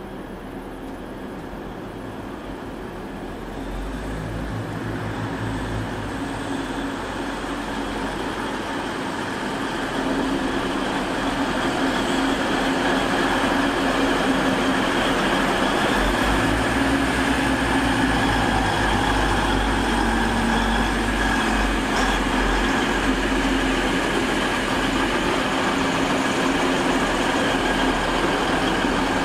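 Red DB Regio Class 612 diesel multiple unit passing close by, its engines running with a steady rumble over the rail noise. It grows louder over the first ten seconds, then holds steady.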